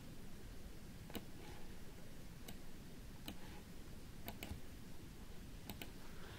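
Faint computer mouse clicks, about seven scattered over several seconds, two of them coming as quick double clicks late on.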